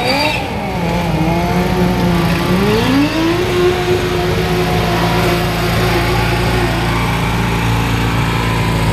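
Engine of a modified garden pulling tractor working under load as it drags a weight sled. The revs swing up and down in the first seconds, climb about three seconds in, then hold high and steady.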